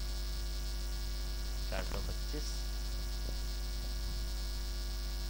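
Steady electrical mains hum: a constant low tone with a ladder of evenly spaced overtones.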